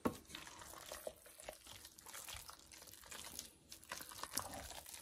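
Wooden spoon stirring thick, mayonnaise-coated potato salad in a stainless steel bowl: faint wet squelching with irregular small knocks, the sharpest right at the start.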